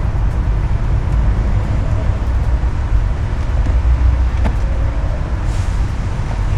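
Steady low background rumble, with a few faint clicks and a brief hiss about five and a half seconds in.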